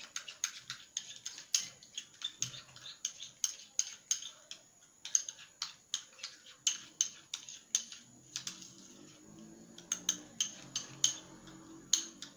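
Spoon clicking and scraping against a small bowl while stirring a thick, creamy paste, in quick, irregular taps.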